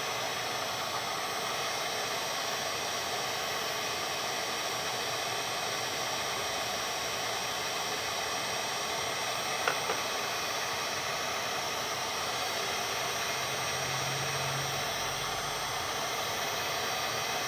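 Wagner electric heat gun blowing hot air in a steady hiss onto a laptop board, heating the solder joints of a jack to the melting point. One brief click about ten seconds in.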